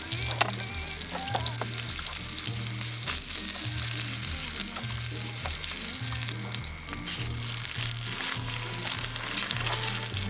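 Food frying in a pan, sizzling steadily with scattered sharp pops of spattering fat.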